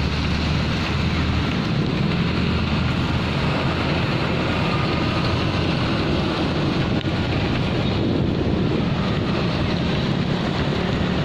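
Steady wind rush over the microphone of a camera carried on a moving bicycle, with road and traffic noise underneath.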